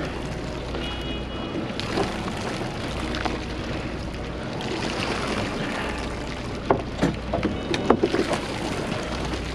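Steady wind and sea noise on an open boat deck, with a low rumble that comes and goes. A brief high tone sounds about a second in, and a few sharp clicks come near the end.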